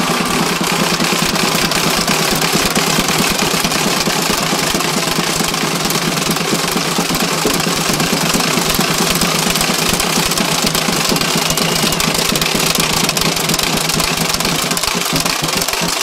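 Large crowd applauding and cheering: a dense, steady patter of many hands clapping.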